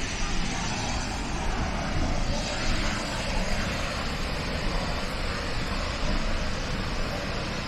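Steady rushing roar of Snoqualmie Falls, a 268-foot waterfall: a dense, even noise that turns a little brighter and hissier about two and a half seconds in.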